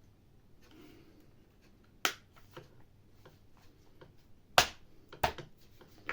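Sharp plastic clicks and knocks as the rear cover of a hammer drill is fitted onto its housing: a few separate clicks, the loudest a little past halfway.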